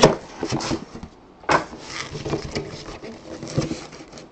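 Cardboard box being slit open and handled: a sharp snap at the start and another about a second and a half in, with cardboard scraping and rubbing as the lid is worked loose.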